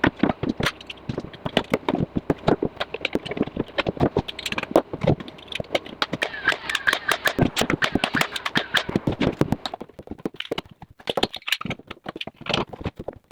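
Rapid, irregular knocking and clattering of wooden parts as drawer boxes are put together, several sharp knocks a second, thinning out about ten seconds in.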